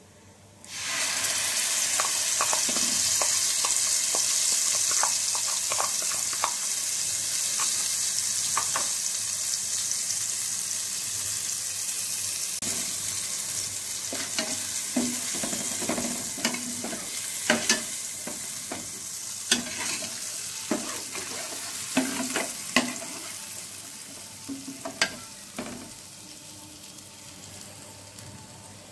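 Water-based spice paste poured into hot oil in a stainless steel pot sizzles, starting suddenly about a second in, loudest at first and fading slowly. A steel ladle stirring it scrapes and clinks against the pot, most often in the second half.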